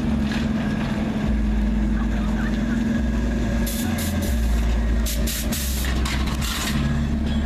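Vehicle engines running at close range with a steady low rumble, as a pickup truck drives past, with short bursts of hissing noise in the second half.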